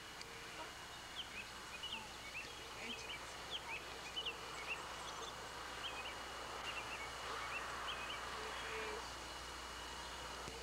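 Small birds chirping, many short quick calls scattered through, over a light steady background hiss and a thin steady high tone.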